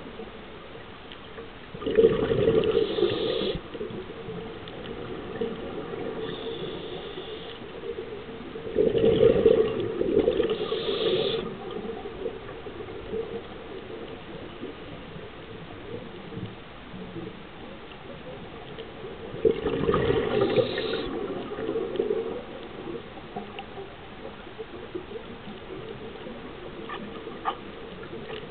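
A scuba diver's exhaled bubbles rushing out of the regulator underwater: three bursts of about a second and a half, several seconds apart, with a steady hiss between them.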